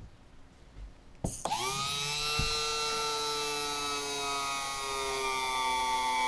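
A click, then the small electric motor of a model hydraulic pump starts about a second in and runs with a steady whine, its pitch slowly sagging as it pressurizes the R/C hydraulic landing-gear system and drives the gear ram.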